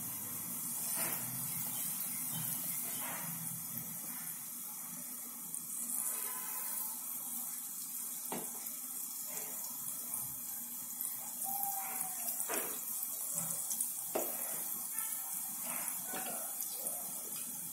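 Lentil-batter fritters (laddu peethi) deep-frying in hot oil in a pan: a steady sizzle, with a few sharp crackles as more batter is dropped in.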